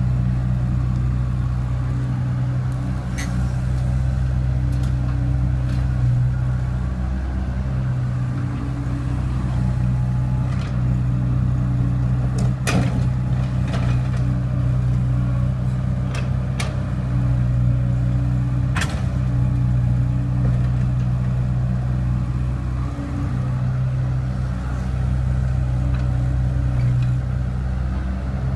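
Hydraulic excavator's diesel engine running steadily, its pitch and load swinging a little as it works the arm and bucket to dig soil and load a dump truck. A few sharp knocks come through, the loudest near the middle.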